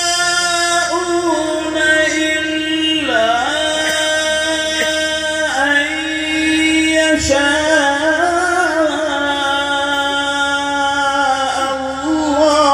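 A male Quran reciter (qari) chanting tilawat in long, drawn-out melodic notes through a microphone and loudspeakers, his voice sliding down and back up a few times and wavering in ornamented runs without a break.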